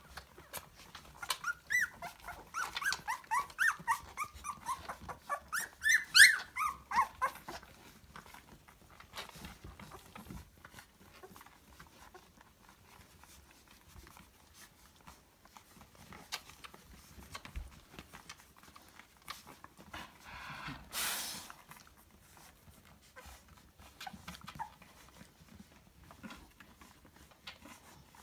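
Two-and-a-half-week-old Lapphund puppies whining and squeaking in a quick string of short, high yelps for the first seven seconds or so. They then settle into faint shuffling, with one short rush of noise about 21 seconds in. The cries are those of hungry, upset puppies.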